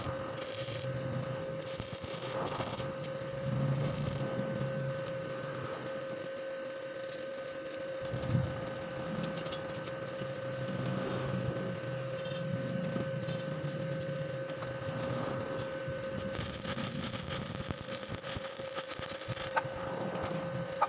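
Tool work: irregular scraping and rubbing over a steady hum, with a stretch of dense hissing noise a few seconds before the end.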